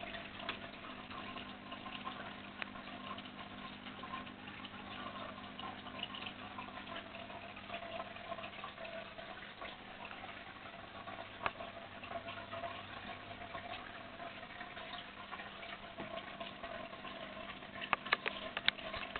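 Aquarium filter running: steady trickling and splashing water with a low motor hum, and a few sharp clicks near the end.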